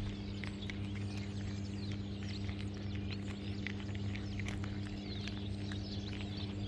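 Cats crunching dry kibble: many small, sharp crunches at an uneven pace over a steady low hum.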